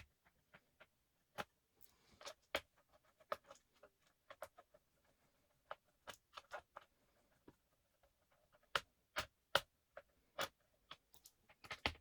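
Irregular light clicks and taps, some in quick clusters, from small plastic and metal laptop parts being handled.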